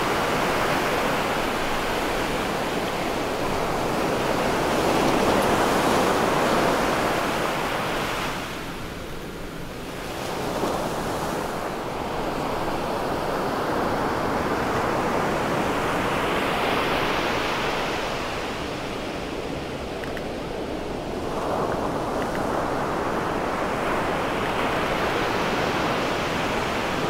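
Surf on a sandy beach: waves breaking and washing up the sand as a continuous rush that swells and eases off several times.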